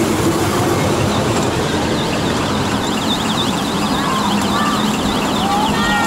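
Children's kiddie ride train running on its circular track: a steady rumble, with a fast, high warbling tone coming in about halfway through.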